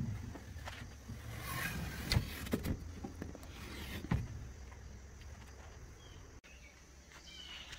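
Marker pen drawn along the edge of a metal level on plywood, a scratchy rasp about a second and a half in, with a few light knocks as the level and pen are handled, over a low steady rumble.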